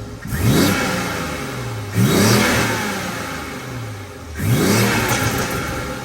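Toyota Supra MK5's turbocharged engine revved three times, each blip climbing quickly and then dropping slowly back toward idle.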